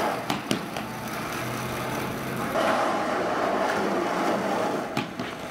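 Skateboard wheels rolling on pavement, with two sharp clacks of the board just after the start and another near the end.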